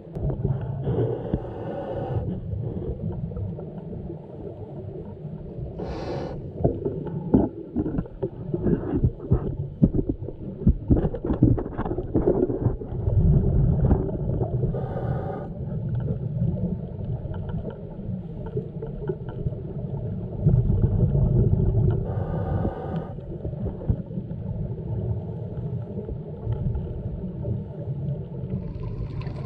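Underwater sound heard through an action camera's housing: a steady low rumble with brief hisses of scuba breathing every several seconds. A dense run of sharp clicks and scrapes comes in the middle.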